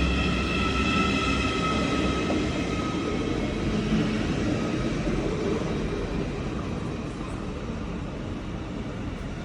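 A train running past, with a high multi-toned whine that fades out over the first few seconds, leaving a steady rumble that slowly dies away.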